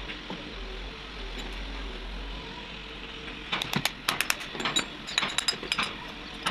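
Metal parts of a small electric motor being handled: quiet at first, then from about halfway in a quick run of irregular metallic clinks and taps as the steel motor body is set down and a ring spanner goes onto the nut at its end.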